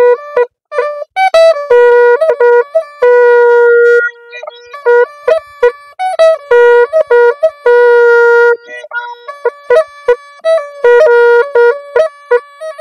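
A pepa, the Assamese hornpipe, here with a bell made of paper, played as a melody. Its buzzy reed tone steps between a few notes, with quick short notes and longer held ones and brief breaks between phrases.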